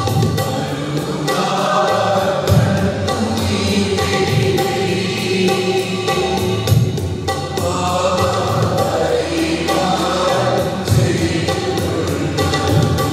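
Church choir singing a hymn in phrases over an electronic keyboard accompaniment.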